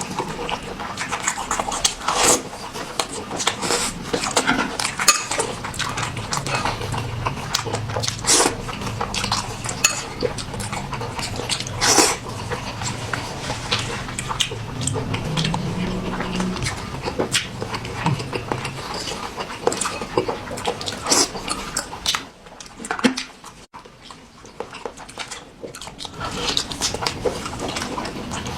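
Close-up eating sounds played back at double speed: noodles slurped and chewed, with utensils clicking against a bowl again and again.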